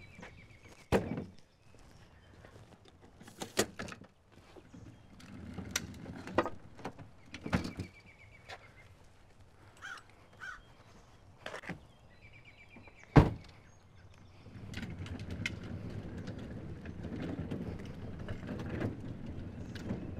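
Sharp knocks and thunks as a wheeled plastic cooler is handled at a pickup truck, the loudest a single thunk about thirteen seconds in. From about fourteen seconds in comes a steady low rumble.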